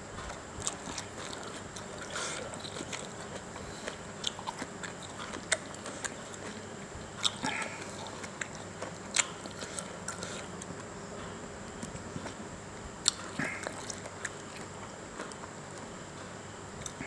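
Close-up eating sounds: a person chewing a mouthful of spicy instant-noodle salad, with scattered sharp wet clicks and smacks at irregular intervals.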